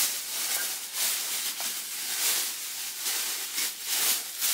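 Wrapping crinkling and rustling as it is pulled off a mug by hand, in uneven handling bursts.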